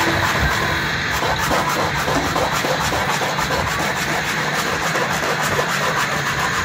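A small hand tool scraping and rubbing along the cut slots of a plastic sewing template, over a steady din of workshop machines.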